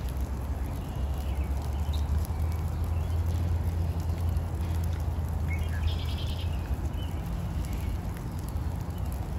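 Rainy park ambience: a steady low rumble under a soft even hiss of rain, with a few short bird calls over it, the clearest a harsh chattering call about six seconds in.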